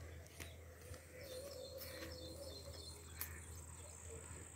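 Faint rural ambience: small birds chirping now and then over a steady low hum.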